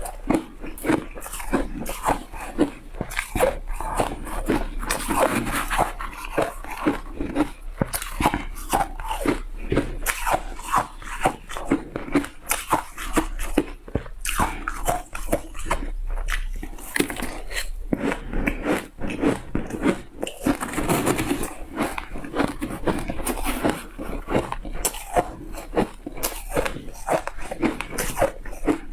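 Shaved ice coated in vegetable powder being bitten and chewed, with dense, irregular crunches several times a second.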